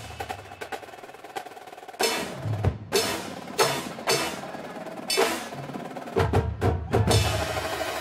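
Drum corps percussion section playing: marching snare and tenor drums with front-ensemble percussion. A quieter opening gives way, about two seconds in, to a series of sharp accented hits and rolls, and a sustained chord fills in near the end.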